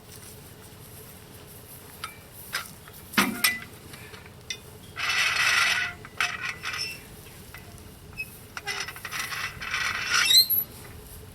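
Metal clinks and a sharp knock, then two rasping, scraping stretches of a second or more each, as the sawmill track is jacked up and its blocking worked loose.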